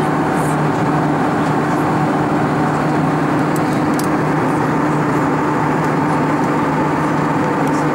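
Cabin noise of an Airbus A320-232 in cruise, heard inside the cabin near the wing: a steady rush of airflow with an even hum from its IAE V2500 turbofan engines.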